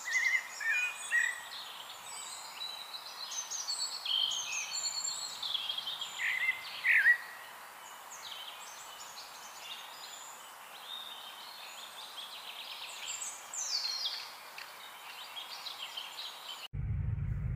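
Several songbirds singing and calling, many short chirps and downward-sliding notes over a steady background hiss. Near the end the sound cuts abruptly to a low rumble.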